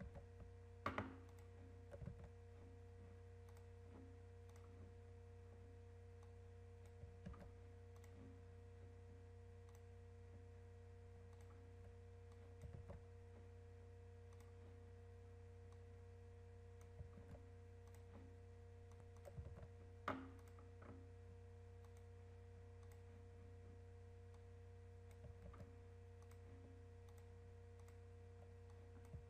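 Near silence with a steady low hum, broken by scattered faint clicks of a computer mouse and keyboard, about a dozen, the sharpest about a second in and near the twenty-second mark.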